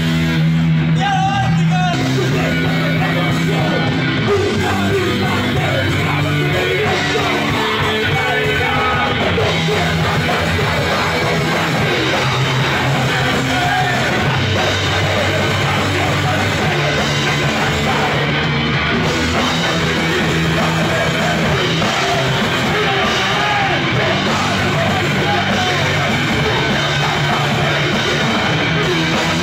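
Rock band playing live, loud and without a break: heavy, punk-style rock with a drum kit and shouted vocals.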